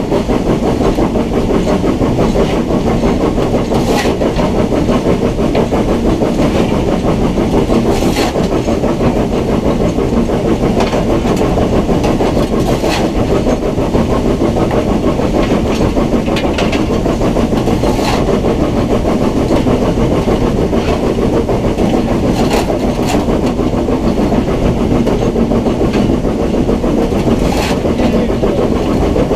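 Footplate noise of BR Standard Class 9F steam locomotive 92203 'Black Prince' running under way: a loud, steady rumble and clatter in the cab, with a sharp click every four to five seconds.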